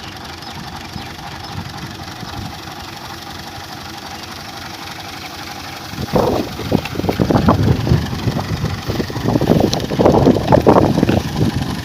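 A harvesting machine's engine running, steady at first, then joined about six seconds in by louder, irregular rumbling surges.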